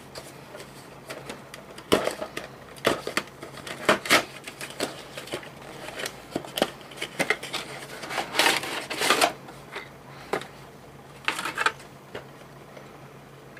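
Cardboard miniatures box being opened and handled, with a plastic parts tray slid out: scattered sharp taps and clicks of cardboard and plastic, and bursts of rustling around the middle and again near the end.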